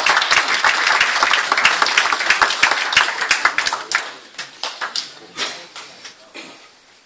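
Small indoor audience applauding. The clapping is dense at first, thins out after about four seconds, and ends in a few scattered claps.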